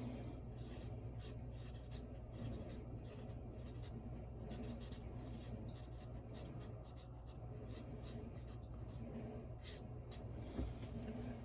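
Pen writing on paper: a long run of short, irregular scratchy strokes over a faint low room hum.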